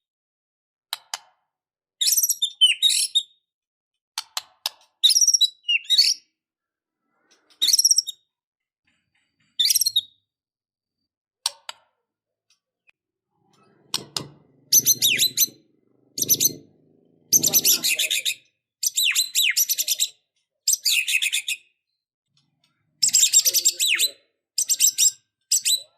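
White-rumped shama singing: short bursts of varied, high, quickly changing phrases separated by pauses, becoming denser and almost continuous in the second half.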